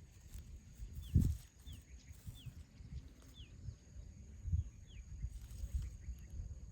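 Short, high animal chirps, each falling in pitch, repeating about once a second over low rumbling and a few dull thumps, the loudest thump about a second in.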